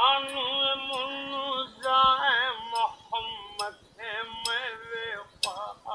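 An elderly fakir singing in short wavering phrases while striking a steel rod against the metal bangle on his wrist. The rod gives a sharp clink about once a second under the voice.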